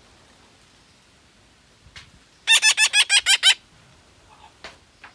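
A young parrot calling in a quick run of about nine short, repeated squawks lasting about a second, midway through.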